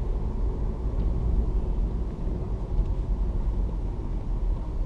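Steady low road rumble of a car heard from inside the cabin while driving.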